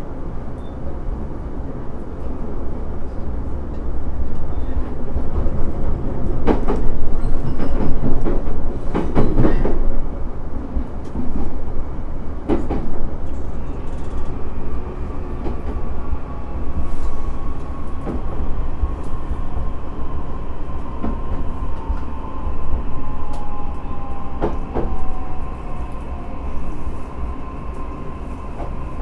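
E131-600 series electric train running, heard from inside the car: a steady low rumble of wheels on rail, loudest a few seconds in, with several sharp knocks. From about halfway a thin electric motor whine comes in and slowly falls in pitch.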